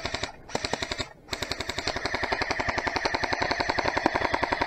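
Airsoft rifle firing on full auto, a rapid rattle of about a dozen shots a second. Two short bursts come first, then a long unbroken string from a little over a second in that grows louder.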